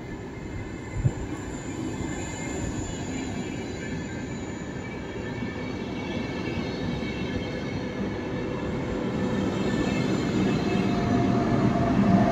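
InterCity passenger train rolling along the track, with a faint high wheel squeal over the rumble of the wheels. There is a single knock about a second in, and the noise slowly grows louder toward the end.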